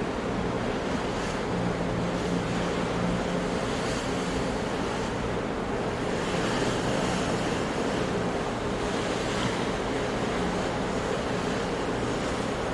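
Big ocean waves crashing, a steady unbroken wash of surf.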